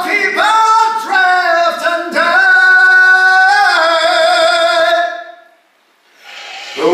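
Male rock singer singing a cappella into a microphone, in a high head-voice register: a few short phrases, then one long held note that dies away about five and a half seconds in, with a new phrase starting just before the end.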